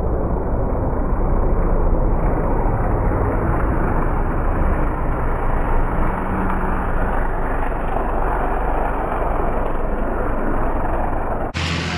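Avro Lancaster bomber's four Rolls-Royce Merlin engines droning steadily as it flies overhead. The sound cuts off suddenly near the end, giving way to a lower steady engine hum.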